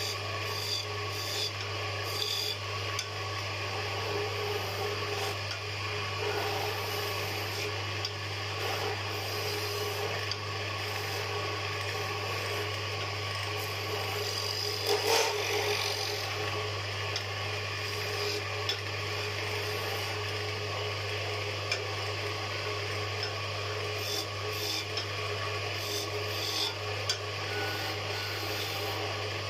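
Wood lathe running with a steady motor hum while a cutting tool scrapes and shaves along a spinning wooden spindle, with a louder cut about halfway through.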